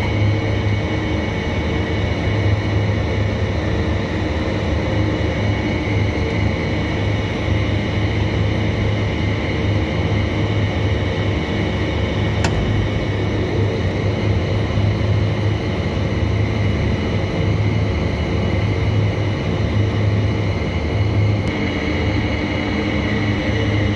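A running HVAC chiller gives a loud, steady machine drone with a strong low hum and several steady high whining tones. A single sharp click comes about halfway through, and the high whine changes slightly a few seconds before the end.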